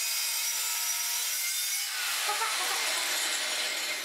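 Circular saw cutting across the end of a maple tabletop, its motor whining steadily. About halfway through the sound turns rougher, and near the end the motor's pitch starts to fall as the saw winds down.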